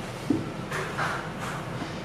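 Long knife sawing back and forth through a sponge cake on a turntable: a few soft swishing strokes, with a light knock about a quarter of a second in.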